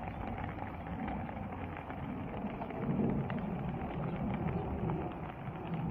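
Rain falling on garden plants and ground: a steady hiss with many scattered drop ticks, over a low rumble that grows stronger about three seconds in.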